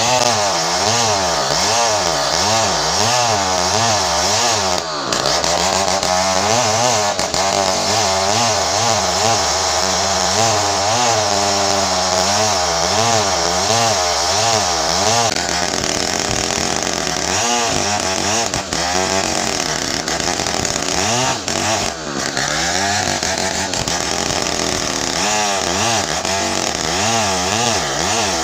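Large assembled 070-type two-stroke chainsaw running hard, its engine pitch rising and falling over and over as it works through ironwood.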